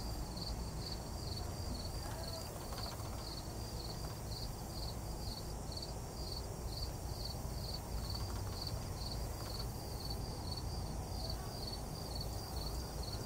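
An insect chirping steadily and evenly, about two to three chirps a second, over a steady low rumble.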